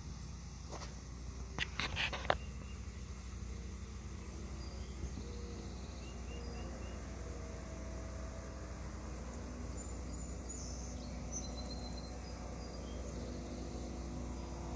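Outdoor background ambience: a steady low rumble, a brief cluster of sharp clicks about two seconds in, and a few faint high chirps later on.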